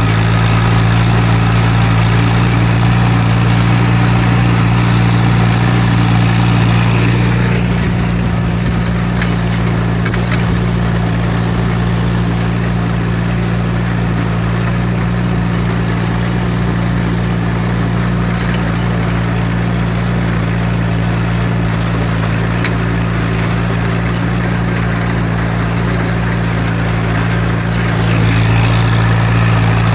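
Allis-Chalmers CA tractor's four-cylinder gasoline engine running at a steady speed. It drops a little quieter and duller about a quarter of the way in and comes back up near the end.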